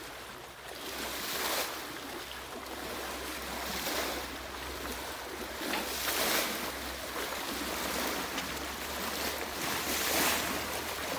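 Steady rushing noise of a shallow river, with wind on the microphone; the noise swells every second or two.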